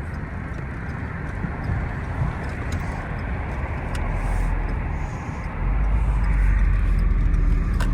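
Steady road-traffic noise, a low rumble that gets louder about five and a half seconds in.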